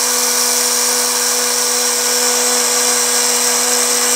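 Small electric blade grinder (spice/coffee-grinder type) running at full speed as it grinds toasted seeds and nuts, a steady high-pitched whine over a low hum. It cuts off abruptly at the very end, leaving the batch only coarsely crushed.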